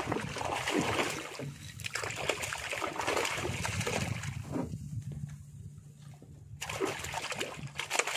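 Water splashing and sloshing as a small hooked fish thrashes at the surface beside a boat hull while it is hauled in on a handline. The splashing comes in two spells with a quieter pause in the middle, ending in a bigger splash near the end.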